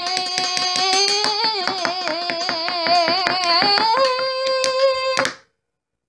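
A child's voice singing a long held note that wavers in the middle and steps up to a higher note about four seconds in, over rapid hand claps; it cuts off suddenly about five seconds in.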